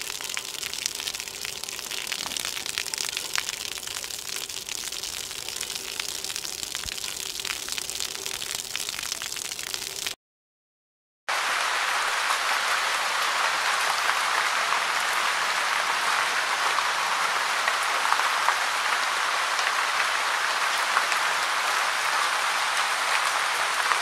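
Rain falling steadily, a dense hiss of many small drop ticks. It cuts out for about a second near the middle, then a denser, louder stretch of rain follows.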